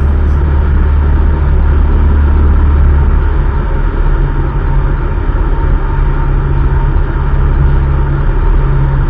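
Cessna 152's Lycoming O-235 four-cylinder engine and propeller droning steadily, heard from inside the cockpit. About three to four seconds in, the deepest note of the drone gives way to a somewhat higher hum.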